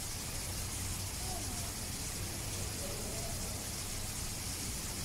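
Steady background hiss and low hum with faint, distant voices of people talking.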